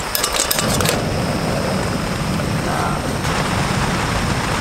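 Water poured from a plastic bottle into a small camping kettle, with clinks, in the first second. Then a canister gas stove burner runs with a steady rushing noise under the kettle.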